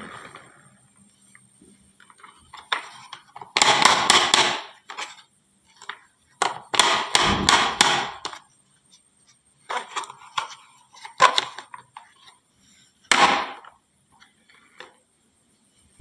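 Marbles clattering down a wooden HABA marble run slope: quick runs of hard clacks and knocks in several bunches with short pauses between, the longest and loudest about four seconds in and again around seven to eight seconds in.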